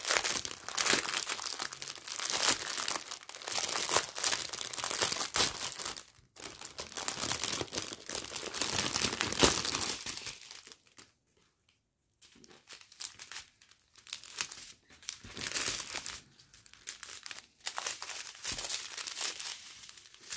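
Plastic packaging crinkling as it is unwrapped and handled: a clear plastic bag and a strip of small zip-lock sachets holding round diamond-painting drills. It comes in irregular spurts, with a short quiet pause about halfway through.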